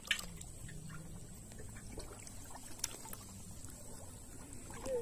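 River water sloshing and trickling around a person wading waist-deep. There is a sharp tap just after the start and a fainter one near the middle.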